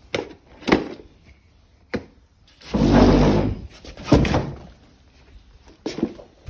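Knocks and bumps of things being handled, with a loud scraping slide about three seconds in and another bump just after, like a drawer or sliding door being worked.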